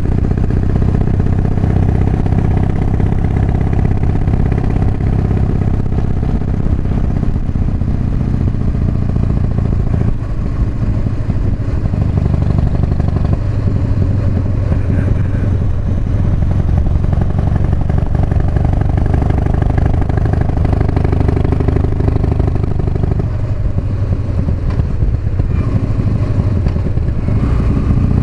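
Harley-Davidson Softail V-twin engine, its ignition timing advanced, running steadily under way as heard from a mic inside a full-face helmet. Its pitch and note shift a few times with throttle and gear changes.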